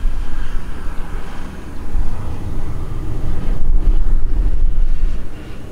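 Airbus A380-841's four Rolls-Royce Trent 970 turbofans at approach power as the jet passes low overhead: a loud, deep rumble that swells through the middle and eases near the end.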